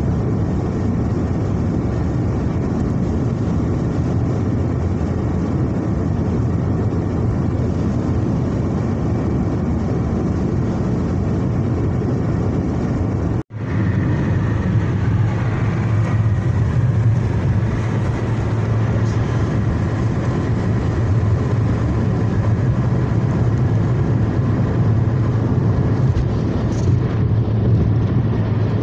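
Steady road and engine noise heard from inside a car's cabin as it drives at highway speed, with a strong low rumble. The sound cuts out for an instant about halfway through and returns with a steadier low drone.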